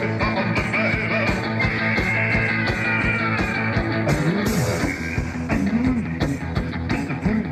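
Rock song from a one-man band: electric guitar over a steady kick drum and cymbal beat, with bending guitar notes.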